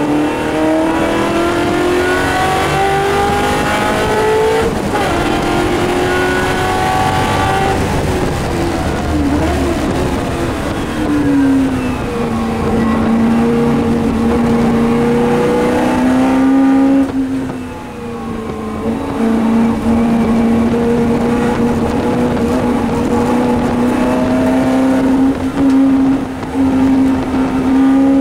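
Historic race car's engine at racing speed, heard from inside the cockpit: it revs up and shifts gear about five seconds in, drops in pitch under braking around ten seconds, lifts off briefly past the middle, then pulls steadily higher again.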